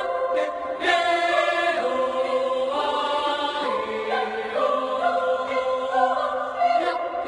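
Choir singing a Papuan folk song arrangement in several voice parts, holding chords that shift every second or so.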